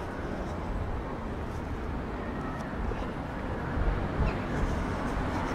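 City street ambience: a steady rumble of road traffic, with a couple of faint knocks about four seconds in.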